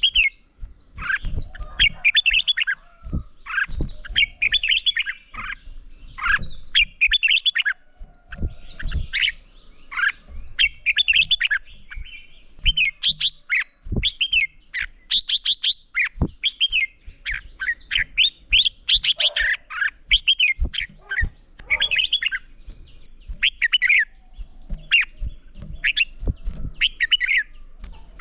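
Red-whiskered bulbuls singing competitive fighting song: short, quick whistled phrases given one after another with hardly a pause, with short sharp clicks between them.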